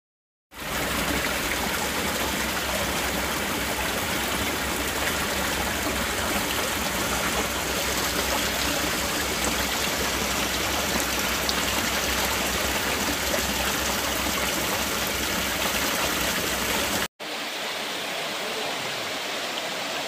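Mountain stream rushing over rock ledges in small cascades into a clear pool, a steady rush of water. It starts about half a second in, breaks off for an instant near the end, then goes on a little softer.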